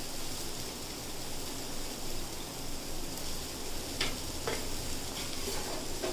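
Food frying with a steady sizzle, and two sharp knocks about four seconds in.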